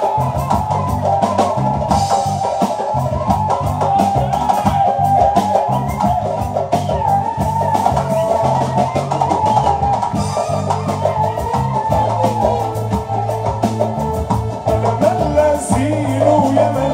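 Live band music: a drum kit and hand percussion keep a steady beat under a bass line and a melody line.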